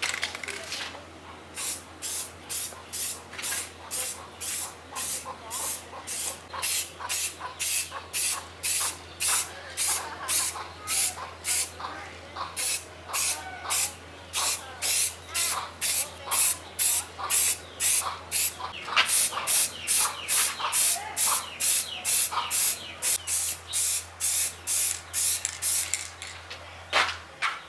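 Short, evenly repeated spray bursts, about two a second, over a steady low hum that cuts off near the end.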